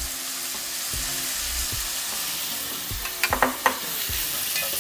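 Bacon frying in olive oil in a frying pan, a steady sizzle, with a quick cluster of sharp knocks a little over three seconds in.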